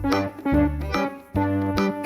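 Background music: a keyboard tune played as a run of short notes over a bass line.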